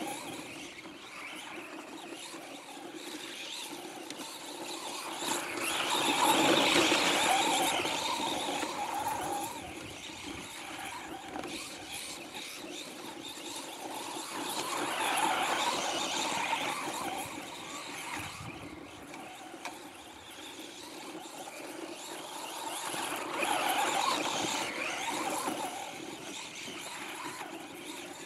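Electric motor and drivetrain of a Traxxas Slash 4x4 radio-controlled truck whining as it laps a snowy track. The whine swells three times, about every nine seconds, as the truck passes close by, then fades as it drives away. The drivetrain has a new main bearing, pinion and spur gear.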